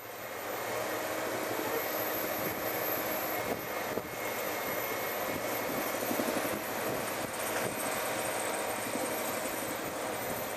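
Backhus compost windrow turner running steadily: the drone of its engine together with the spinning drum churning through a pile of ground yard waste and biosolids.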